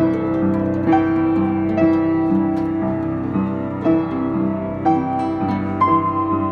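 Upright piano and acoustic guitar jamming together: piano chords struck about once a second over held bass notes, with the guitar playing along.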